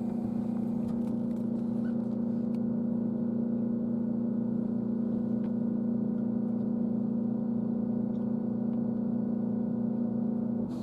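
Steady hum from an electric train's onboard equipment, heard from inside the passenger car, holding one even pitch without rising or falling.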